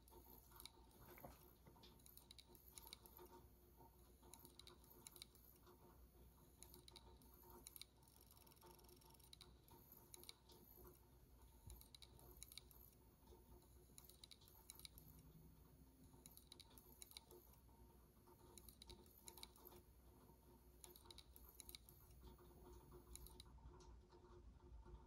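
Opened 1.8-inch hard drive of an iPod Classic 6th generation 120 GB, its read/write head seeking: faint, irregular clicking and ticking over a faint high whine that stops near the end. The drive is searching for its operating system to boot from and failing because of a damaged platter.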